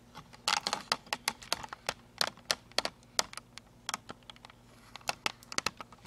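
Hands handling hard plastic: a quick, irregular run of light clicks and taps, a few a second.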